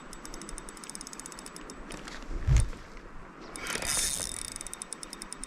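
Fishing reel being cranked to bring in a hooked trout, giving a rapid, even ratchety clicking that comes and goes. A brief low thump about two and a half seconds in.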